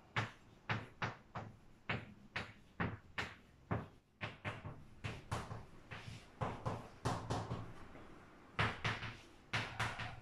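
Chalk writing on a blackboard: an irregular run of short taps and scrapes, two or three a second, as letters are written by hand.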